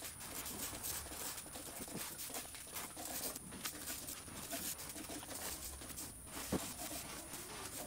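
Hand trigger spray bottle spritzing race tire cleaner onto a drag radial tire in a run of short sprays, with a single sharp click about six and a half seconds in.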